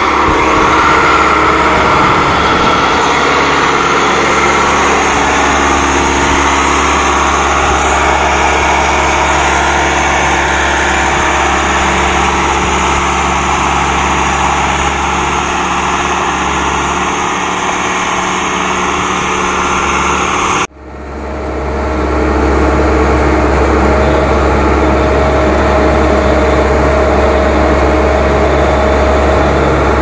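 Diesel engine of a Case 1107 EX vibratory soil compactor running steadily as it works. About two-thirds of the way in the sound cuts out for an instant and comes back with a heavier low hum.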